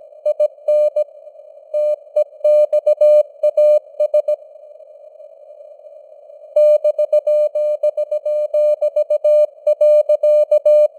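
Morse code sent at 17 words per minute: a single steady tone keyed on and off in dots and dashes over a constant hiss of simulated radio noise. About four seconds in, the keying stops for roughly two seconds, leaving only the hiss, then resumes.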